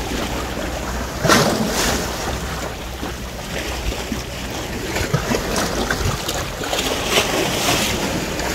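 Sea waves washing against a rocky shore, with wind buffeting the microphone; the wash swells louder about a second in and again around seven to eight seconds.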